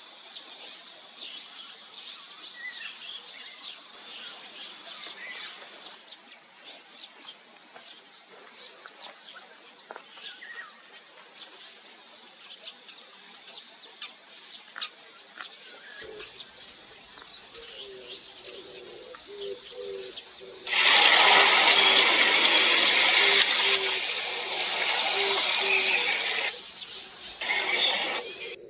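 Small birds chirping faintly over a steady hiss. After a change partway through, a dove coos repeatedly in low, evenly spaced paired notes. A loud hissing rush covers the cooing for about five seconds in the second half, and a shorter one follows near the end.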